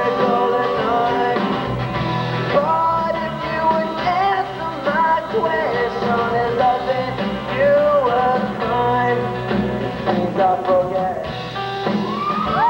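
Live rock band playing a song: a male singer over acoustic and electric guitars with drums. Near the end a long high note rises in and holds.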